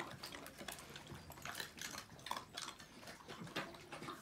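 Dogs eating wet food from metal bowls: irregular chewing and lapping with small clinks of muzzles and teeth against the bowls.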